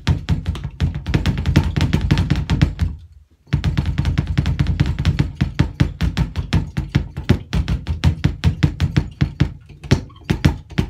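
Fast, continuous run of bass drum strokes from a double bass drum pedal played heel-down, with the heels resting on the floor and the toes working the footboards. The strokes break off briefly about three seconds in, then carry on.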